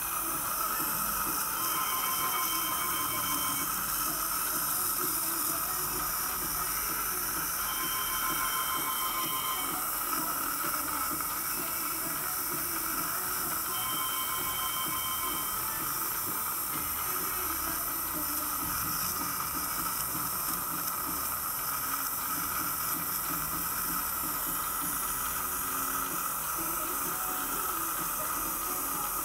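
Dental suction in the patient's mouth hissing steadily, with a faint wet gurgle. Three short faint beeping tones sound about six seconds apart in the first half.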